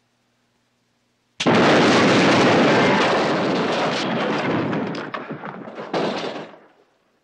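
An explosion going off suddenly after about a second and a half of quiet, then a long noisy tail that slowly dies away, with scattered clatters of falling debris near the end.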